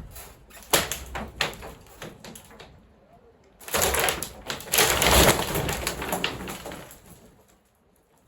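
Old wooden pergola being torn down: a run of sharp knocks and cracks, then from about four seconds in a longer stretch of crunching and clattering as pieces break and fall, dying away near the end.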